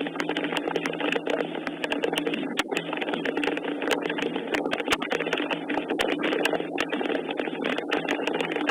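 Rain falling steadily, a dense patter of many sharp drop clicks, with a steady low hum underneath.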